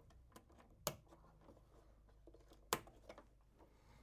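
Faint handling sounds of electrical wiring work: two sharp clicks about two seconds apart, with a few lighter ticks, as wires and small parts are fitted to the terminals.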